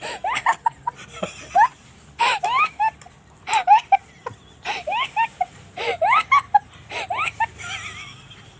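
High-pitched laughter in repeated short bursts, broken by sharp coughs: someone laughing so hard they cough.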